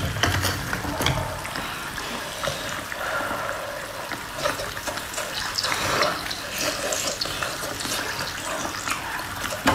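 Close-miked wet eating sounds: slurping, smacking and chewing a piece of saucy, spicy sea snail meat, with many small clicks from the mouth.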